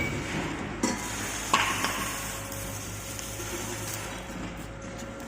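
Metal parts knocking and clinking three times in the first second and a half, over a steady rustling clatter, with a faint steady hum from about two seconds in.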